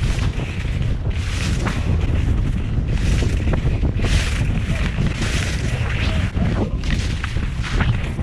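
Wind rumbling on the microphone, with a hiss that swells and fades about once a second.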